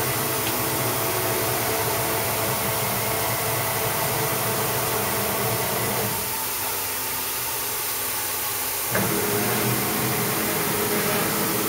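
Steady mechanical hum of a running semiconductor wet-bench cleaning machine, with several steady tones. For about three seconds in the middle the lower tones drop away, then they return abruptly.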